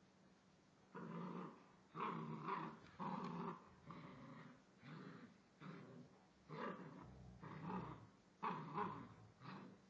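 Puppy growling in play while tugging a toy with an older dog: about ten short growls in a row, starting about a second in.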